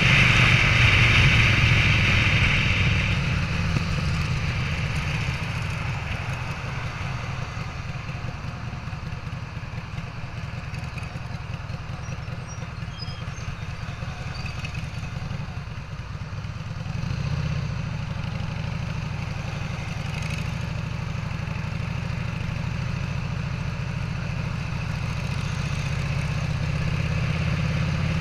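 Harley-Davidson Sportster V-twin, an 883 bored out with an NRHS 1250 kit, running under way. It is loudest in the first few seconds, then eases back to a lower, steady running note, swells briefly around the middle, and slowly builds again near the end.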